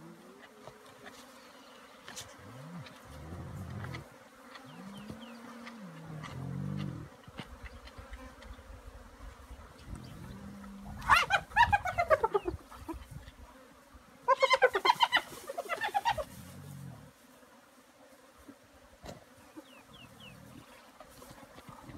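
Spotted hyenas and white-backed vultures squabbling over a giraffe carcass: low hyena growls that rise and fall through the first several seconds. Then come two loud bursts of squealing calls, a falling series about eleven seconds in and rapid pulsed calls around fifteen seconds. Flies buzz faintly under it all.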